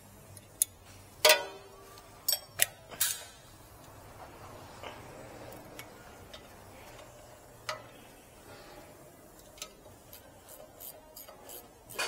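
Metal hand tools knocking against a BMW F10's rear brake caliper: a few sharp clanks in the first three seconds, then single clicks. Near the end comes a quick, even run of ratchet-wrench clicks, about three or four a second, as a caliper bolt is turned.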